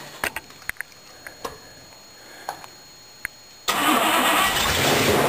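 A few light clicks and knocks, then, near the end, the 1953 Cadillac 331 V8 suddenly fires up and runs loud through its tube headers.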